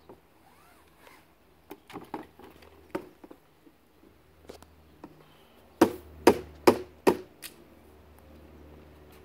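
Knocks and taps from a window screen being handled while it is washed: scattered light knocks, then four loud knocks in quick succession about six seconds in.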